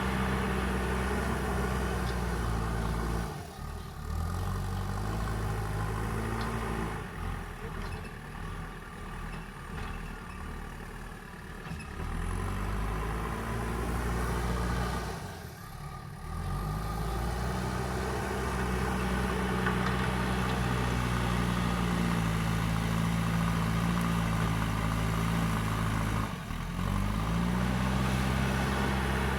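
Backhoe loader's diesel engine working under changing load. It runs steadily, then drops off several times, with a rougher, lower stretch in the middle, and revs back up in a rising sweep after each dip.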